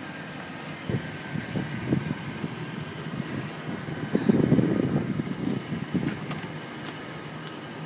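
A vehicle engine idling steadily, with irregular rustling and knocks over it from about a second in, loudest about four to five seconds in.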